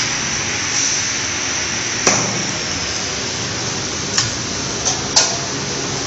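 Steady factory-floor hiss with four sharp knocks or clacks, the first about two seconds in and three more close together over the second half.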